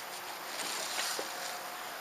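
Soft rustling and a few faint clicks from handling a folded PVC inflatable kayak and its transport bag, over a steady outdoor hiss.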